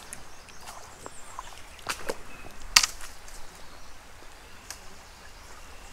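Scattered sharp clicks and swishes from handling the fishing rod and line, the loudest a single snap about three seconds in, over a quiet outdoor background.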